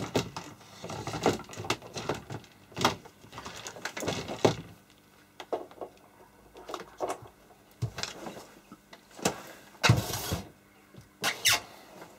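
Irregular clicks, knocks and rustling as a power cable is plugged into the back of a Tektronix 2445A oscilloscope; the loudest knocks come about ten and eleven and a half seconds in.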